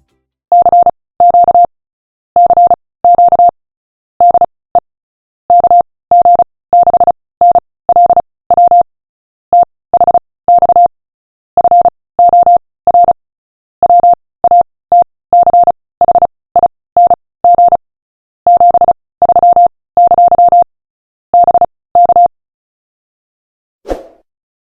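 Morse code (CW) sent as a single steady, mid-pitched beep tone, keyed on and off in short and long elements with silent gaps between them.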